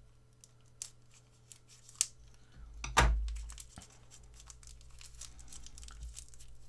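A small plastic packet being torn and cut open with a folding knife: crinkling plastic and scattered clicks, with a loud thud about three seconds in.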